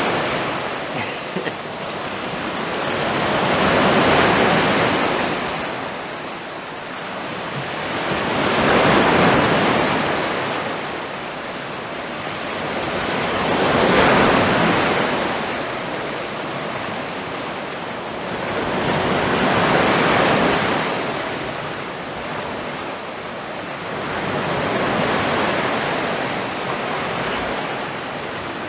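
Sea waves breaking on the shore and washing back, each wave swelling up and fading away, roughly every five to six seconds.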